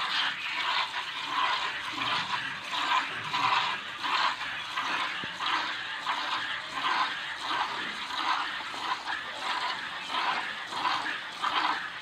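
Milk squirting from a buffalo's teats into a plastic bucket under two-handed hand milking, in a steady rhythm of short spurts.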